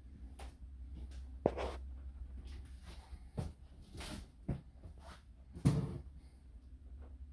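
A few separate knocks and thuds in a small room, the loudest a dull thud near the end, over a low steady hum.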